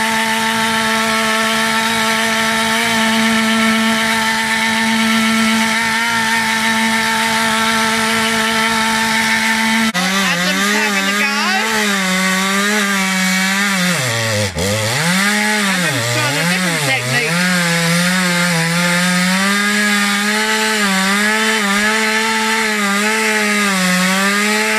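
Two-stroke petrol chainsaws cutting green branch wood. For about the first ten seconds one saw runs at a steady high rev; then a second saw takes over, its revs dipping and recovering again and again as it bogs in the cut. The saws are struggling to cut, put down to a chain not getting enough oil and in need of sharpening.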